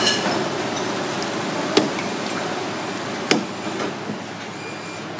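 Cleaver chopping into a giant lobster's shell on a wooden chopping block: two sharp knocks about a second and a half apart, over steady background noise.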